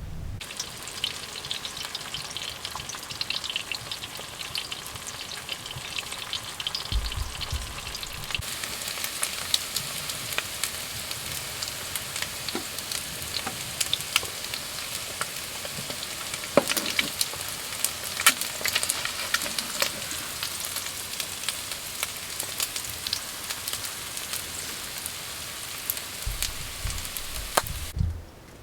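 Food frying on a wood stove: a steady sizzle full of small crackles and pops, which cuts off suddenly just before the end.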